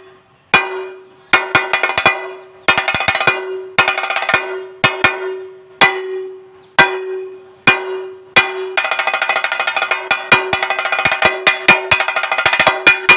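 Chenda, the Kerala cylindrical drum, struck on its skin head with two sticks: sharp, ringing strokes in irregular groups, breaking into a fast continuous roll about nine seconds in.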